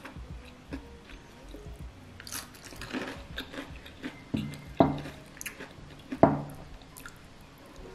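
Close-miked chewing and crunching of crispy fried chicken. Three louder sharp sounds come a little after the middle.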